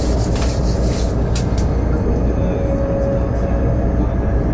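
Steady low rumble of a moving train heard from inside the carriage, with a few brief clicks in the first second and a half.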